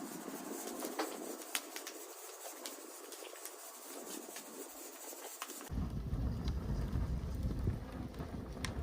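Wood fire crackling with scattered sharp pops over a steady hiss. About two-thirds of the way through it cuts abruptly to wind buffeting the microphone.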